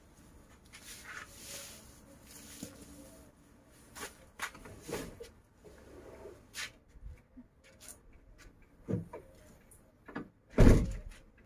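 Light rustles and a few soft knocks as a woven feed sack is shoved into the back of a van, then the van's rear door is slammed shut near the end, one heavy thump that is the loudest sound.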